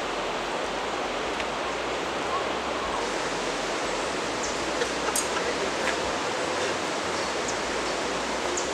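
Steady rush of river water flowing over a shallow riffle, with a few faint clicks.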